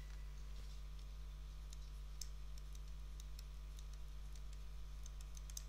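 Faint, irregular clicking from a computer input device as a word is handwritten on screen. The clicks start about a second and a half in and bunch together near the end, over a steady low electrical hum.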